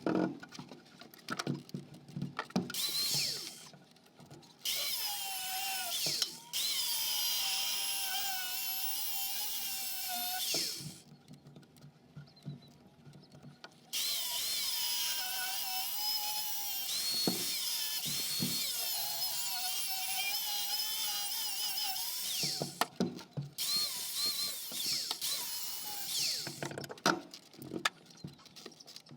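Angle grinder cutting into the steel shell of a compressor. Its whine sags and recovers as the disc bites, in runs of several seconds with a few short stops.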